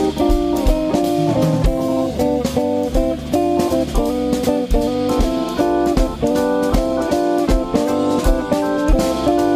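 Jazz trio of electric guitar, organ and drums playing, the guitar moving through quick chords and lines over the drum kit.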